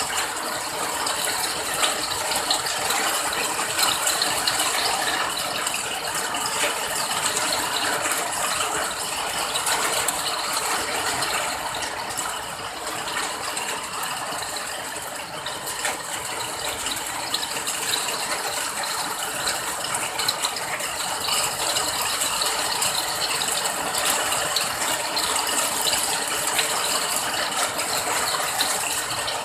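Steady rain, a dense, even patter of countless drops.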